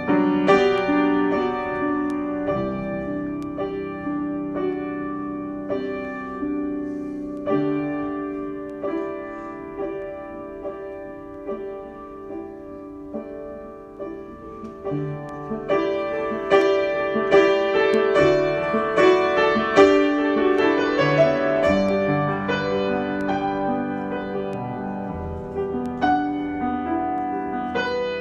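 Solo piano improvisation: overlapping notes and chords struck and left ringing, growing louder and busier about halfway through before settling again.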